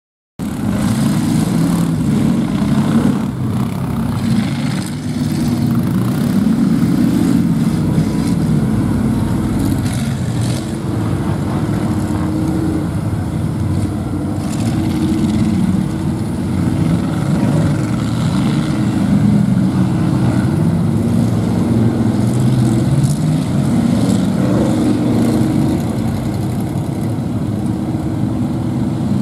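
Two-wheel-drive mud buggy's engine running hard through open exhaust headers, revving up and down the whole time as its tyres dig through mud and water.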